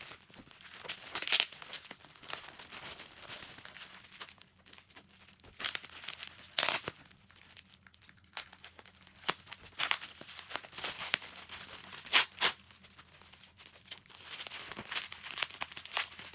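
Tightly sealed packaging being crinkled and torn by hand, a hard-to-open wrapping: irregular crackling with a few sharp rips, two of them close together near the end.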